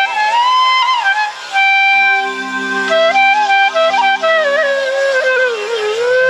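Flute playing an ornamented melody full of pitch slides and bends in an instrumental interlude of Indian classical dance music, with a held lower accompaniment joining about two seconds in.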